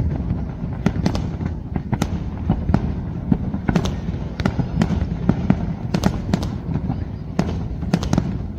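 Fireworks display: an irregular string of sharp bangs and crackles, several a second, over a continuous low rumble of distant bursts.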